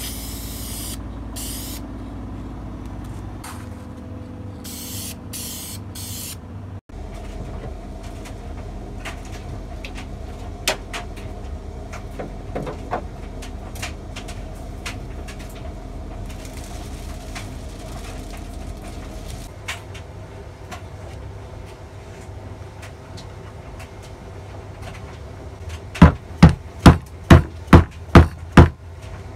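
An aerosol spray-paint can hissing in about six short bursts during the first few seconds. Near the end, a mallet strikes a driver about eight times in quick succession, roughly two or three blows a second, seating a seal into an engine valve cover.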